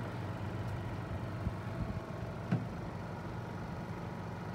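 Steady drone of a floatplane's propeller engine as the plane comes in to land on the water. A brief knock cuts through about halfway.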